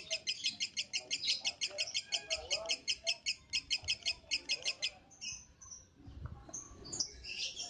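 Lovebird chattering in a fast, even string of high chirps, about eight a second, that stops about five seconds in; a few scattered chirps follow.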